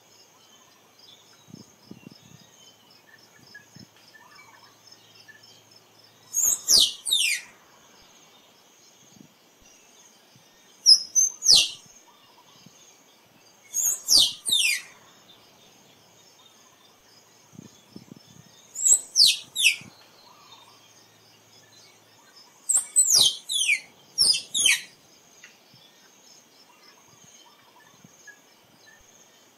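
Tree squirrel calling: five bouts of two to four sharp, high notes that fall steeply in pitch, a few seconds apart. A faint steady insect hum runs underneath.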